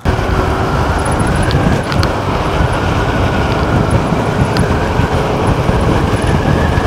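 Wind rushing and buffeting over a helmet or action-camera microphone, with road noise, while riding a Will Mason T1S electric moped at about 35 mph. A faint steady whine runs underneath.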